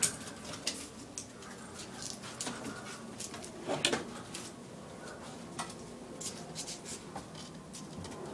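Scattered light taps and clicks on wooden deck boards, irregular, with a louder knock about four seconds in.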